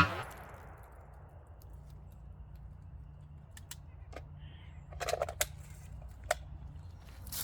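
The ringing of a 9mm pistol shot dies away in the first half second, then only faint scattered clicks and rustles of handling over a low steady hum, with a small cluster of clicks about five seconds in.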